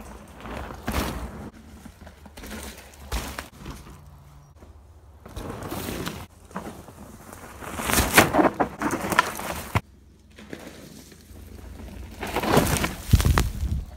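Mountain bike ridden along a dirt woodland trail past the camera, its tyres crunching and rustling over twigs and leaf litter in several noisy passes, the loudest near the middle and near the end.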